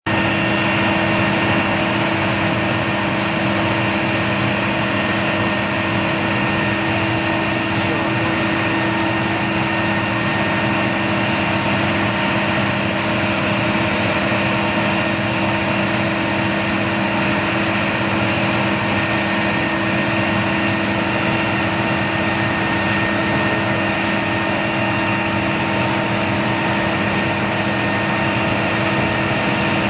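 Steady machinery drone with constant high whining tones from a parked Airbus A330-200F freighter, holding unchanged throughout.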